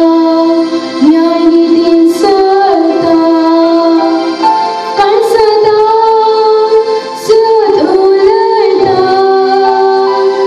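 A girl singing solo into a microphone, in long held notes that step from pitch to pitch.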